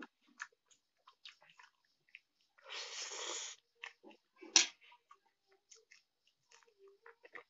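Close-up eating sounds of a man eating Maggi noodles: soft wet chewing and lip clicks, a hissing breath about a second long near the middle, and one sharp loud clink of a fork on the plate shortly after.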